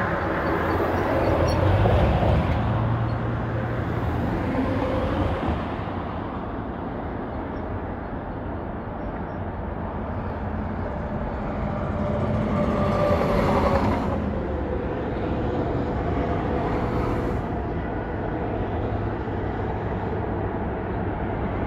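Steady interstate highway traffic: a continuous rush of vehicles passing. About two-thirds through, one louder vehicle goes by, its tone dropping in pitch as it passes.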